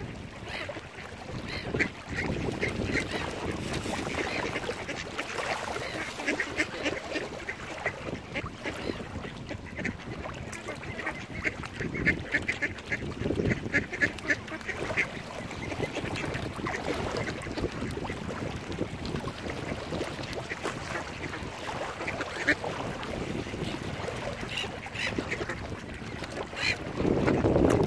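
Waterfowl calling in repeated runs of short, quick notes over a steady background hiss. Wind buffets the microphone near the end.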